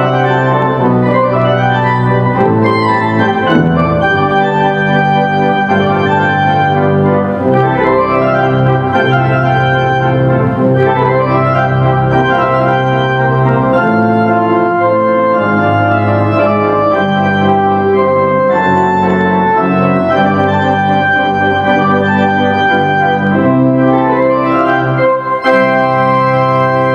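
Three-manual church organ playing the postlude: full sustained chords over a pedal bass line, changing every second or two at a steady volume.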